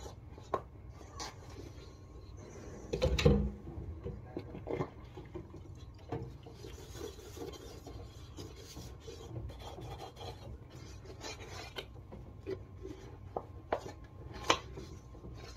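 Household items being handled and shifted on a kitchen table or counter: scattered light knocks, clicks and rubbing, with one louder thump about three seconds in.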